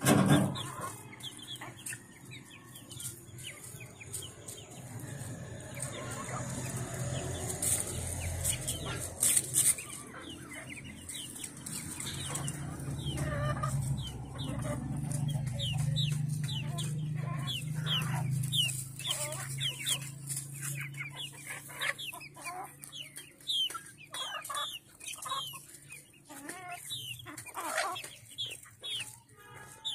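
A flock of hens clucking as they peck at food. From about halfway in, many short, high calls come thick and fast, over a low steady hum in the middle.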